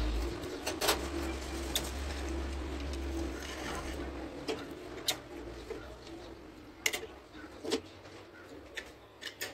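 Scattered sharp metal clicks and taps as a steel rod and small parts are handled against a Honda CG 125 engine's open clutch side, about seven in all, over a low hum that fades out about four seconds in.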